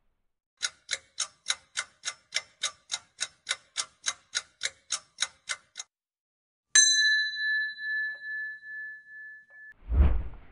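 Quiz countdown-timer sound effect: a clock ticking about three times a second for some five seconds, then a single bell ding that rings out for about three seconds. Near the end comes a short whoosh as the screen changes to the next question.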